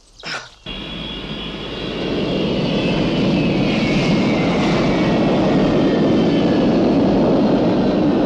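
Jet aircraft engine starting suddenly and building within a second or so to a loud, steady run, with a whine that slowly falls in pitch throughout; it cuts off sharply at the end.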